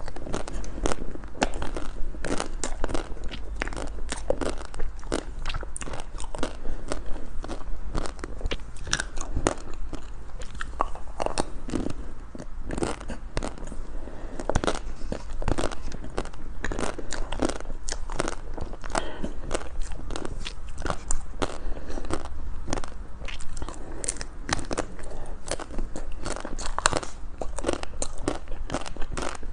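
Close-miked ASMR eating of ice cream: many crisp, irregular crunches of bites and chewing, one after another, over a steady low hum.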